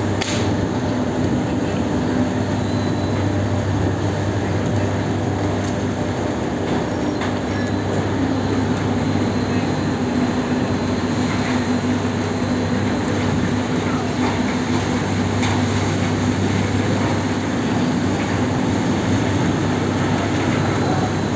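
Steady, loud rumble and hum of sugar-mill cane-unloading machinery running, with a few faint clicks.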